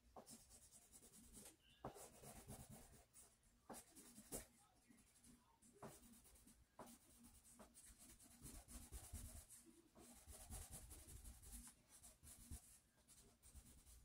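Faint, irregular scratching and rubbing of a drawing tool on paper as a sketch is shaded in with quick strokes.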